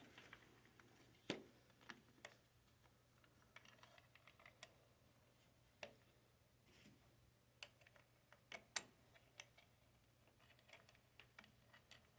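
Faint, irregular clicks and taps, a dozen or so, from hands working the joint knob and screws of an electric golf caddy's handle while loosening and tightening it, over a faint steady low hum.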